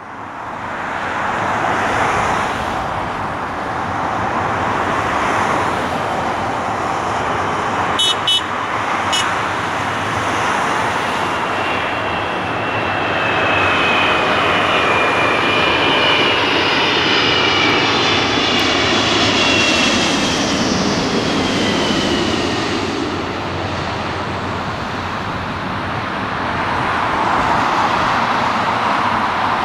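The jet engines of a Boeing 777-200 airliner on final approach, a steady roar with a whine that falls in pitch as the aircraft passes overhead about midway through. A couple of sharp clicks come about eight seconds in.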